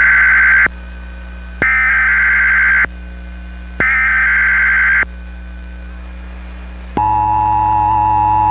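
Emergency Alert System digital header: three harsh, buzzy data bursts of about a second each, about a second apart. About 7 s in, the EAS two-tone attention signal begins and holds steady, the alert tone that opens a monthly test.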